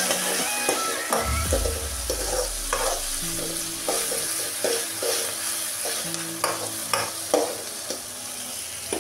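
Chopped green chillies and vegetables sizzling in hot oil in a metal kadai. A metal spoon stirs and scrapes against the pan in short strokes about once a second over a steady frying hiss.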